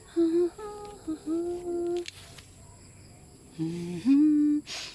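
A voice humming a tune in a few held notes, with pauses between the phrases; the last phrase starts with an upward slide.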